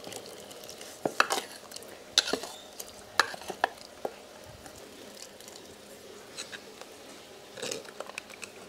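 Steel spoon scraping and clinking against a steel bowl as ground masala paste is spooned into a clay pot, with several sharp clinks in the first four seconds. This is followed by quieter stirring in the pot.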